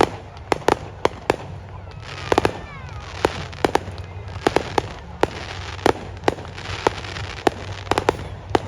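Fireworks display: a rapid, irregular string of sharp bangs, several a second, over a steady crackling hiss, with brief whistling sounds about two to three seconds in.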